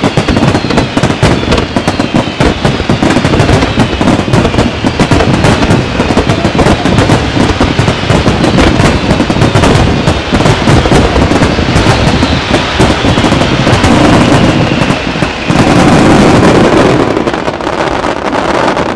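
Aerial fireworks barrage: a dense, continuous run of shell bursts and crackling, with whistles gliding down in pitch. It is loudest about sixteen seconds in and starts to fade at the end.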